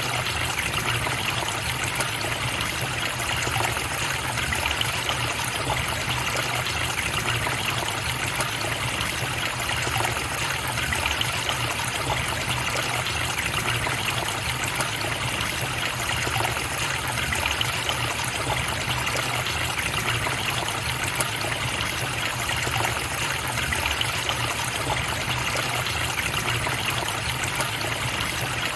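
River water flowing steadily, an even, unchanging rush of running water.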